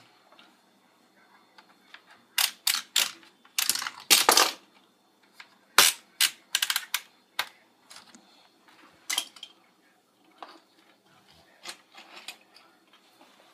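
Hard plastic toy parts clicking and clattering as they are handled, in short runs of sharp clacks, busiest from about two to seven seconds in.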